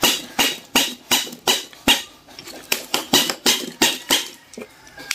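A steady series of sharp taps or clicks, about three a second.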